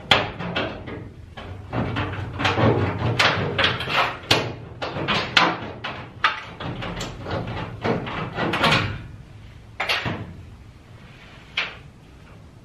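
Irregular knocks and clatter of sheet-metal stovepipe parts being fitted and handled at the wall opening, coming thick and fast for most of the time and thinning out to a few single knocks near the end.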